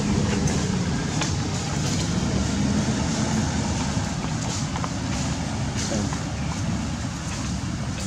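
Steady rumbling background noise with a low hum that fades out about halfway, and a few faint clicks scattered through it.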